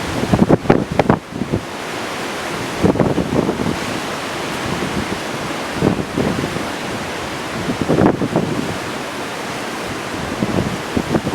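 Heavy typhoon-driven surf and strong wind: a steady rush of breaking waves and wind, with louder surges every two to three seconds where gusts buffet the microphone.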